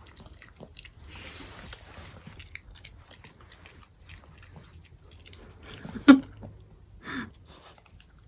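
A small dog (Maltese) chewing and crunching a treat, with many small clicks of its bites. About six seconds in there is one short, louder sound, and a smaller one about a second later.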